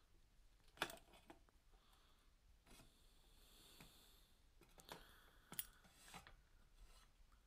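Quiet handling of locking pliers on a felt-lined metal cover: a sharp metallic click about a second in, then a few lighter clicks and clinks past the middle.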